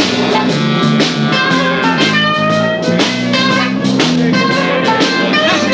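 Live band playing a blues-rock instrumental intro with electric guitar and drum kit.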